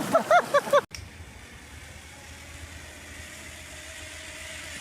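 A quick run of honking waterfowl calls, about five a second, that cuts off abruptly about a second in. A steady low engine hum follows.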